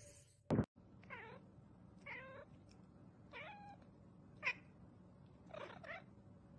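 Cat meowing five times in short, bending calls, with a dull thump about half a second in.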